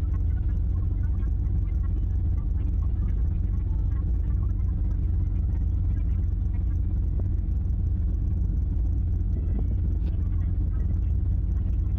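A steady low rumble, even in level throughout, with faint scattered higher sounds over it.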